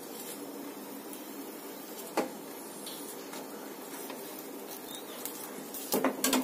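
Stuffed potato paratha frying in a nonstick pan on a gas burner, a steady low hiss, with a metal spatula clicking against the pan once about two seconds in and a few times near the end.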